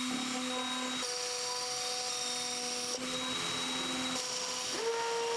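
X-Carve CNC router milling MDF: the spindle runs with a steady cutting hiss while the stepper motors whine underneath. The whine changes pitch several times as the machine moves from one cut to the next, with a short rising glide near the end.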